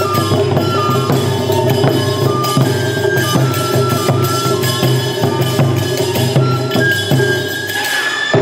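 Bamboo transverse flute playing a melody of short held notes, with one note sliding up and held near the end, over frequent light percussion strokes and a steady low accompaniment.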